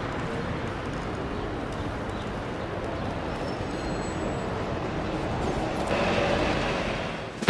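City street ambience: a steady rumble of traffic, growing a little louder near the end.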